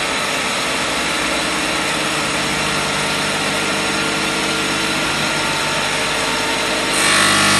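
A motor or machine running steadily, with a low hum under a noisy whir. It gets louder about seven seconds in.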